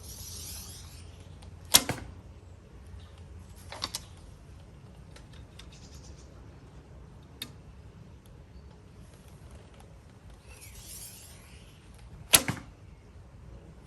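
Two shots from a 30 lb laminated horsebow. Each is a sharp snap of the bowstring on release, the first about two seconds in and the second near the end. A duller knock of the first arrow striking the target follows about two seconds later.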